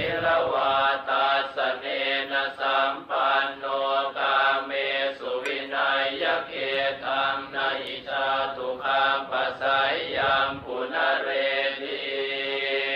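Buddhist chanting of Pali verses: a voice reciting without pause, in a steady chanted tone.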